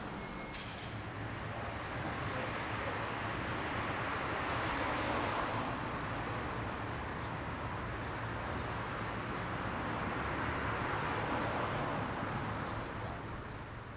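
Steady road traffic noise, swelling gently twice as vehicles pass.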